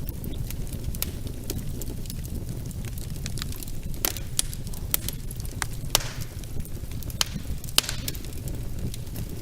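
Wood fire burning in a fireplace: a steady low rumble of the flames with scattered sharp crackles and pops throughout, a few louder snaps about halfway through and near the end.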